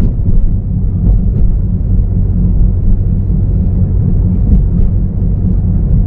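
A car driving along a street, heard from inside: a steady low rumble of engine and road noise.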